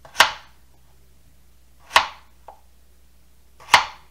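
Kitchen knife chopping through slices of peeled winter squash onto a plastic cutting board: three sharp chops a little under two seconds apart.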